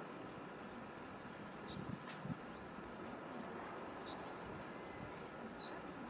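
A bird's short, high chirps, a clearer one about every two and a half seconds with fainter notes between, over a steady outdoor hiss. A brief low knock comes near the middle.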